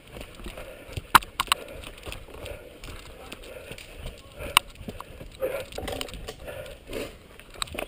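Bicycle riding fast over a dirt singletrack: tyres rolling with a low rumble under it, and the bike rattling with sharp clicks and knocks over the bumps, the loudest a little over a second in and again past the middle.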